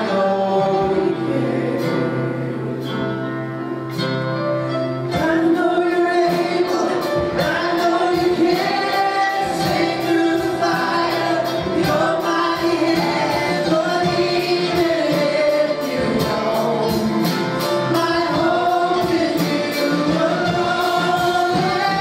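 Gospel song sung by several voices with instrumental accompaniment; held chords at first, then a steady drum beat comes in about five seconds in under the singing.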